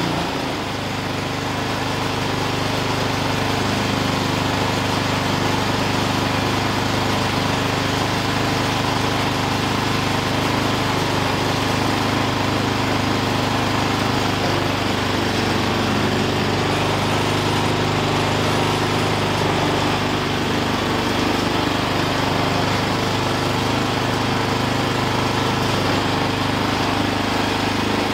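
Small single-cylinder engine of a brand-new Ariens Deluxe 28-inch two-stage snowblower running steadily on its first start. It dips briefly in level and pitch just after the start, then holds an even speed.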